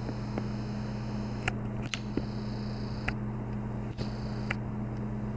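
Vintage Toastmaster model 4425 box fan running, its motor giving a steady low hum over the even rush of air, with a few light clicks.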